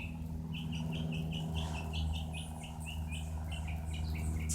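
Small birds chirping in a quick, steady run of short notes, about four a second, over the steady low drone of a Cessna's propeller engine.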